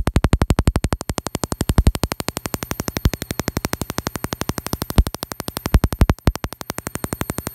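Mini Tesla coil running, a rapid, even ticking buzz of about ten sharp clicks a second, while a fingertip held near its metal ball top draws a small spark.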